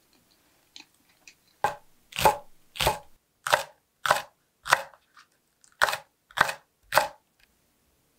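Kitchen knife slicing green onion on a wooden cutting board: nine crisp cuts about every half second, with a short pause after the sixth.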